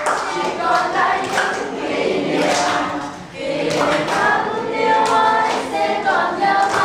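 A class of students singing a song together, a group of young voices, with a short break between phrases about three seconds in.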